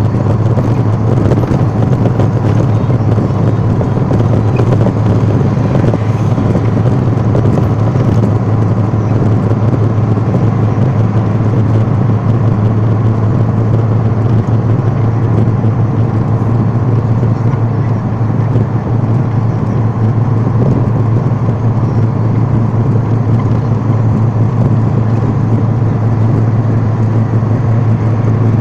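Steady low drone of a moving vehicle's engine and road noise, heard from inside the vehicle, holding even throughout.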